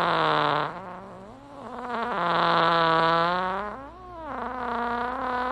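A run of long, drawn-out fart sound effects, each a low buzzing note with a slightly wavering pitch. The loudest runs from about two to three and a half seconds in.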